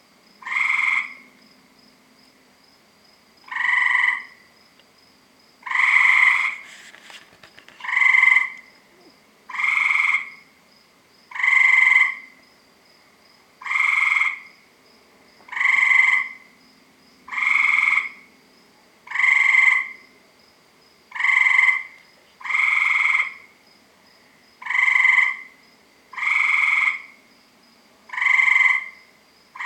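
Tree frog calling over and over, a loud call of under a second repeated about every two seconds.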